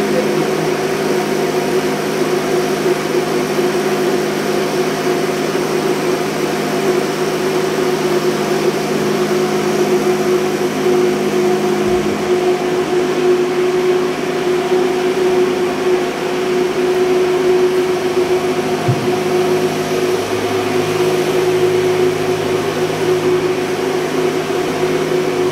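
Diesel machinery running in a ship's engine room: a loud, steady drone with a constant hum, one lower tone dropping out about halfway through.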